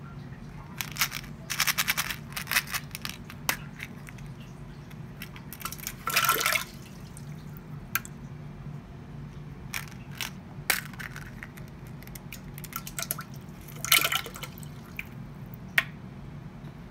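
Plastic surprise eggs dropped into a toilet bowl of cola and coffee: clicks and rattles of the plastic shells, with short splashes twice, near the middle and near the end. A steady low hum runs underneath.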